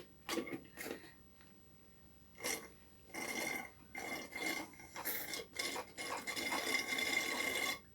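Rustling and scraping of food packaging being handled: a few short scuffs, then a steadier rustle for about two seconds near the end.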